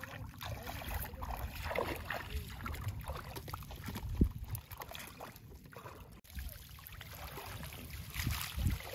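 Steady low rumble with scattered rustles and light knocks as fish are picked out of a fishing net and dropped into a plastic crate, one sharper knock about four seconds in.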